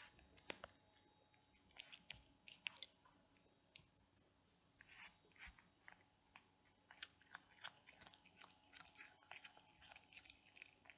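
A cat chewing and biting its food: a quiet, irregular run of small sharp clicks, several a second.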